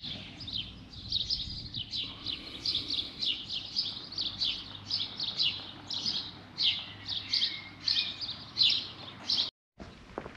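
Small songbirds chirping busily: a quick, loud run of short high chirps, several a second. The chirping cuts off abruptly near the end.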